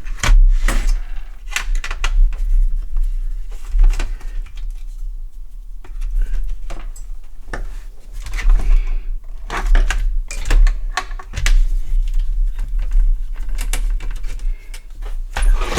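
Irregular clicks, taps and knocks of a Sinclair QL's plastic case and circuit board being handled and worked loose, with low thuds as parts are moved on the bench.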